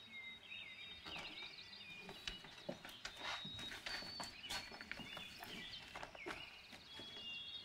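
Faint birds chirping and tweeting in short rising and falling calls. Under them come soft footsteps and a few light clicks and knocks as a door is opened and a book is set down.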